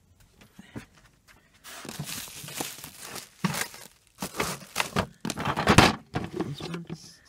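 Plastic bags rustling and crinkling and a hard plastic storage tub being knocked and shifted by hand while rummaging on a shelf, with a few sharp knocks among the irregular rustling.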